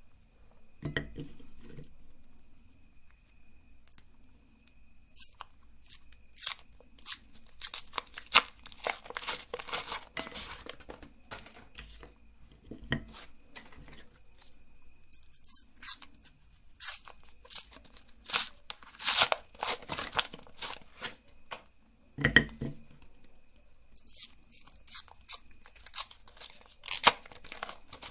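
Crisp wafer ice cream cones crackling and crunching as they are crushed in a meat grinder, in irregular clusters of sharp snaps with a few duller knocks.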